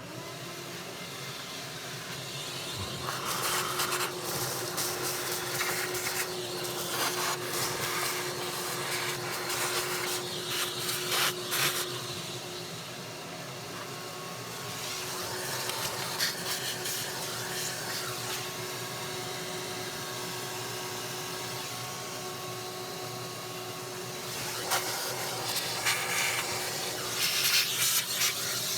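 Vacuum cleaner running steadily with a constant motor hum, its nozzle knocking and rattling as it sucks up debris.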